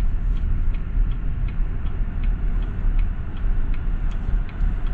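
Car cabin noise while driving on a highway: a steady low rumble from the engine and tyres, with a faint regular ticking about three times a second.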